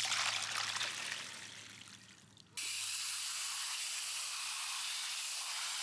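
Wet goji berries and leaves tipped from a glass bowl into a stainless steel colander, with water splashing and trickling away and fading out. About two and a half seconds in, a garden hose spray nozzle comes on abruptly: a steady hiss of water spraying over the berries and leaves in the colander to rinse them.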